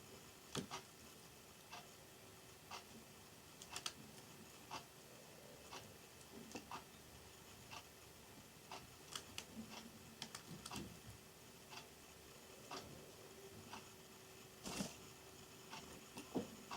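Faint, irregular clicks and taps, one or two a second with a few quick clusters, from a Java sparrow pecking and nibbling at pea sprouts in its cage. A faint steady hum runs underneath.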